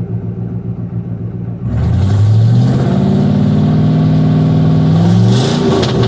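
GMC 454 big-block V8 in a square-body truck, its revs climbing steadily under acceleration for about three seconds, then falling back near the end. The engine had a misfire worked on, and the owner says it is running a lot better.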